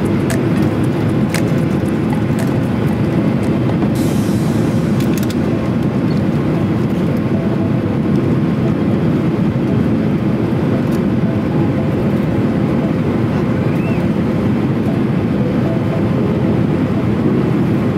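Steady cabin noise inside a Boeing 737-800 on approach: the rumble of its CFM56 jet engines and the rush of air past the fuselage, heard from a window seat over the wing.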